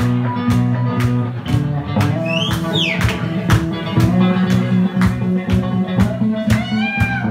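Live band playing: electric guitar over a drum kit keeping a steady beat of about two hits a second, with held low notes underneath and a few high sliding notes.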